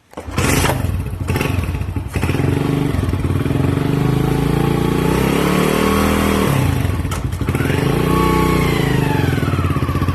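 Honda Win 100 motorcycle's single-cylinder four-stroke engine running, revved up and back down twice.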